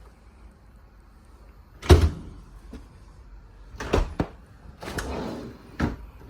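Refrigerator doors being opened and shut: a heavy thump about two seconds in, then a few sharper knocks and clicks.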